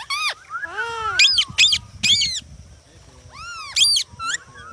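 Indian ringneck parakeets calling: a series of about eight short, arching squawks, some overlapping, as if from more than one bird.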